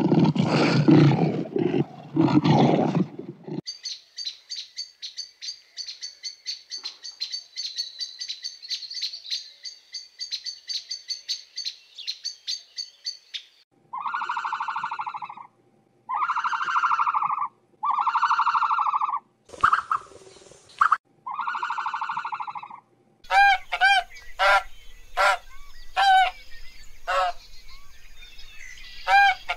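A lioness's roar trails off in the first few seconds, followed by about ten seconds of rapid, high-pitched chirping. Then come five long, even animal calls, and in the last several seconds domestic geese honk many times in quick succession.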